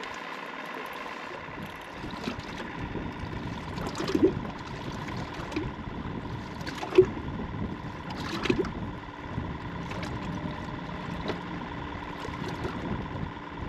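Water lapping and splashing around a small fishing boat over a steady low hum, with a few short knocks and splashes.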